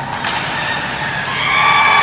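Spectators in the rink cheering a goal, the shouting swelling about a second and a half in.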